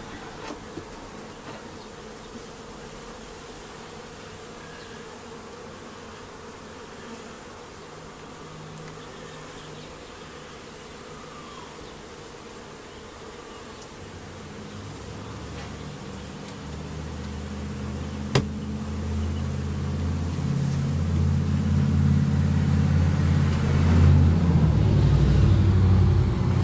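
Honey bees buzzing around an open hive. The hum grows steadily louder over the second half and is loudest near the end, as a frame thick with bees is lifted out. One sharp knock sounds partway through.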